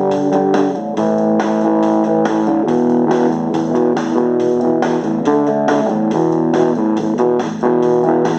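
Instrumental break of a rock song: electric guitar and bass over a steady drum beat, with no singing.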